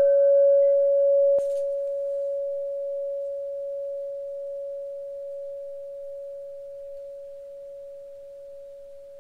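Large single hanging tube chime ringing out after being struck: one low, pure tone that slowly fades away, its brighter overtones dying out within the first second and a half. A short click sounds about a second and a half in.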